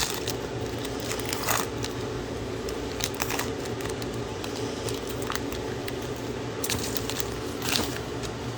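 Plastic wrapper of a football trading-card pack crinkling and tearing as it is opened and handled, in several short crinkles a second or so apart, over a steady low hum.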